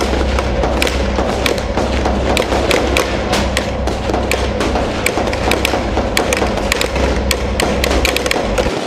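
Tank engine running with a steady low rumble, with a rapid, irregular scatter of sharp cracks and taps over it. The rumble cuts off suddenly near the end.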